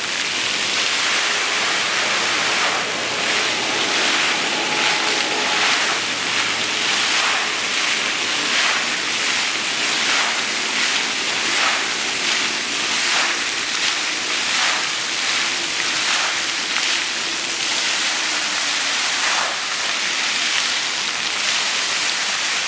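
Water fountain jets splashing steadily into the basin, a continuous rushing spray with small surges now and then.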